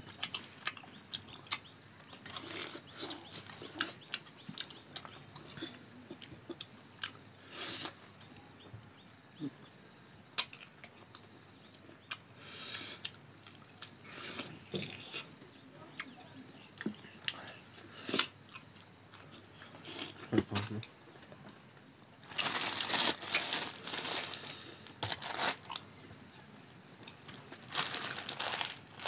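Close-up eating sounds of crisp bites into green mango slices and chewing, with many small wet clicks of the mouth. About two-thirds through and again near the end comes a longer crinkling of plastic packaging.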